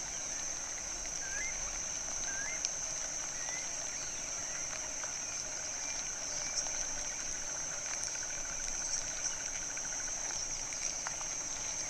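Forest ambience dominated by a steady high-pitched insect drone, with a few faint short chirps in the first few seconds and a brief rapid trill later on.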